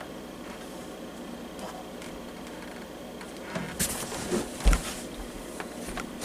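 Plastic diesel heater casing and parts being handled during disassembly: a quiet stretch, then a quick run of clicks and scrapes about four seconds in, with one louder knock near five seconds.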